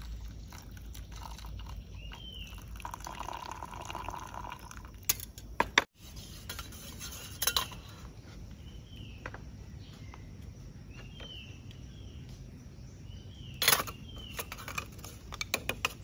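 A bird calling with short arched chirps every couple of seconds, over scattered clinks and taps of utensils and dishes, the loudest about five seconds in and again near the end.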